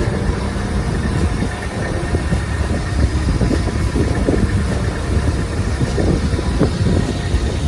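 Long-tail boat engine running steadily, a continuous low rumble.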